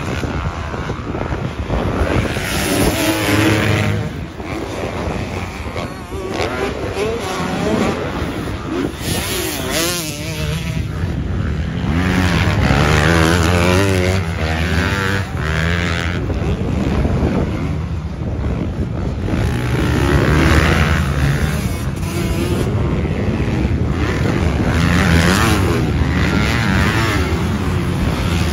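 Motocross dirt bikes riding the track, several at once, their engines revving up and easing off so the pitch rises and falls again and again.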